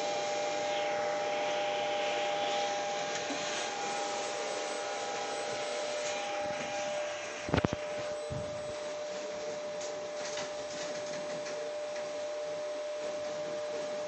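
Siemens Simodrive servo drive power module running on a test bench after repair, with its motor: a steady electrical whine of two tones over an even fan-like hiss. The higher tone fades out a little before halfway, and there is one sharp knock shortly after.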